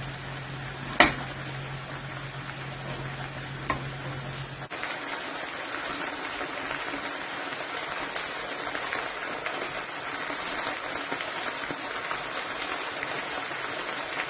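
Chopped potatoes and onions frying in oil in a pan, a steady sizzling hiss. There is a sharp click about a second in, and a low hum that cuts off abruptly a little before halfway.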